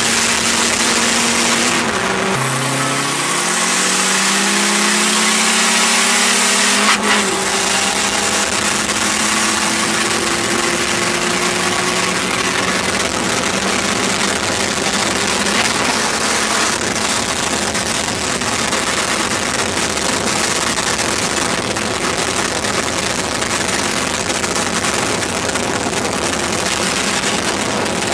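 Car engine pulling hard at highway speed in a roll race, its note rising for several seconds, then a gear change about seven seconds in. After that, steady wind and road noise mostly covers the engine.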